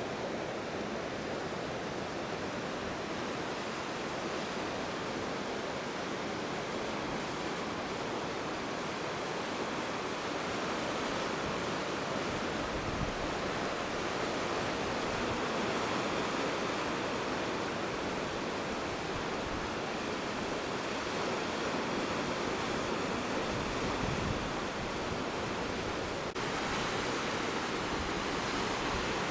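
Steady wash of ocean surf breaking on rocky shore, mixed with wind; the sound shifts abruptly near the end.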